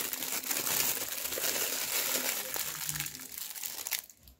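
Plastic piping bag crinkling as it is handled and lifted out of a mug, a dense crackle of thin plastic that dies away near the end.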